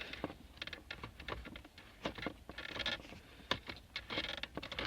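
Small clicks, light knocks and brief scraping of a steel bolt and tool being worked by hand against a metal frame while the bolt is refitted.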